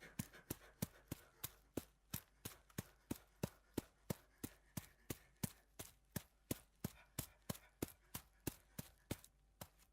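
Footsteps sound effect meant for sand or snow: short, sharp steps in an even, quick rhythm of about three to four a second.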